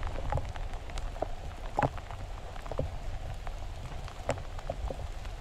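Steady rain falling, with scattered sharp ticks of drops landing close by.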